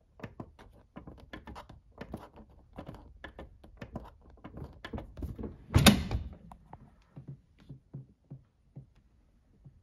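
Buttons on a Whirlpool WDF310PAAS4 dishwasher's control panel pressed in quick succession, a run of short clicks at about two to three a second, to enter the service diagnostic cycle and test the new heating element. One louder thump comes about six seconds in.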